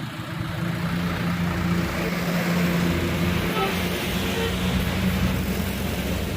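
A large road vehicle's engine running steadily close by in slow traffic, with road noise swelling in the middle.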